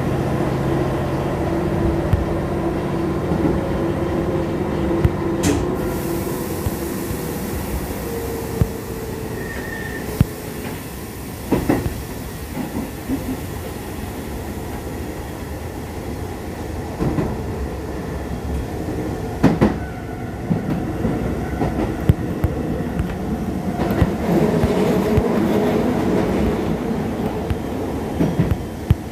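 Keisei 3500 series electric commuter train running. A steady whine from the drive glides slowly down in pitch over the first several seconds. After that the wheels click sharply over rail joints every few seconds, and the running sound grows louder again near the end.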